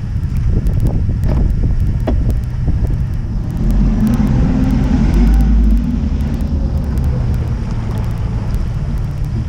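A Skeeter boat running on choppy water, with wind buffeting the microphone. There are several sharp knocks in the first two seconds or so, and the rumble grows louder for a stretch about four to six seconds in.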